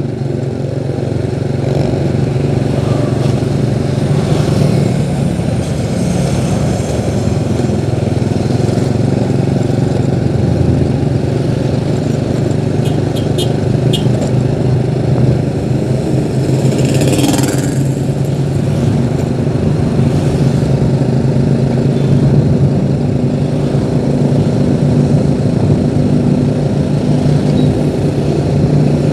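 Engine of the vehicle carrying the recorder running steadily while travelling along a road, with road noise throughout. A brief rushing sound rises and falls about two-thirds of the way through.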